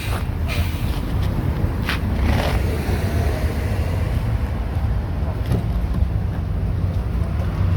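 A motor vehicle engine running with a low, steady rumble, with a few brief rustling or scuffing noises in the first few seconds.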